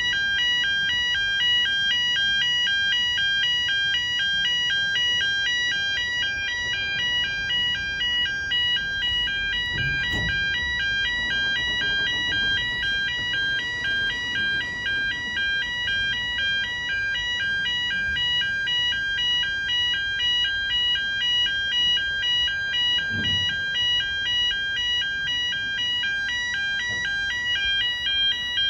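Level crossing warning alarm sounding a continuous, rapidly warbling two-tone yodel, over the low rumble of loaded cement tank wagons rolling across the crossing. Two dull thumps come about ten seconds in and again near twenty-three seconds.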